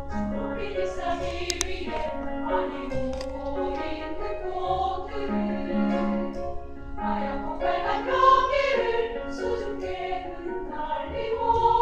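Women's choir singing in several parts, with instrumental accompaniment sustaining notes and a bass line beneath the voices.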